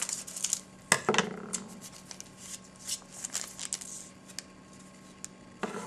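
Big scissors snipping open a pack of trading cards, with a sharp snap about a second in, then the wrapper crinkling and the cards rustling as they are handled.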